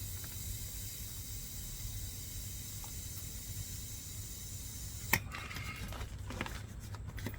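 Air hissing steadily out of an e-bike tire's inner tube as it is deflated, cutting off sharply with a click about five seconds in, followed by a few light clicks of handling the wheel.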